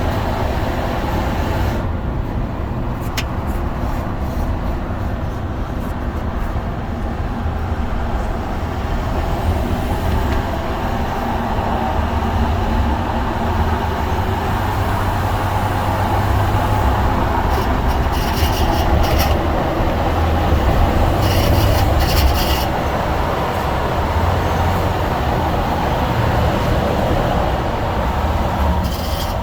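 2018 Ford F-150's 3.5L EcoBoost twin-turbo V6 running, with a rattle coming from underneath the truck at 125,000 miles. Steady low running noise, with a few brief harsher bursts past the middle.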